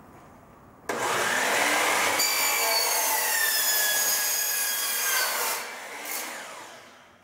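Miter saw starting up about a second in and cutting through aluminum pipe, a loud high whine whose pitch falls during the cut; it winds down over the last second or two.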